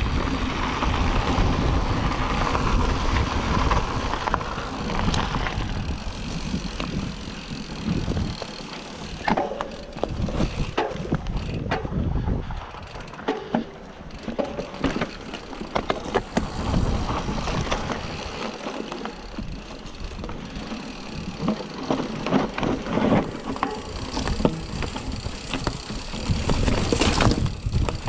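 Bicycle going downhill over rough ground: wind buffeting the microphone over a steady rush of tyre noise, with many short clicks and rattles as the bike goes over bumps. The wind is heaviest for the first several seconds, then the rattles stand out more.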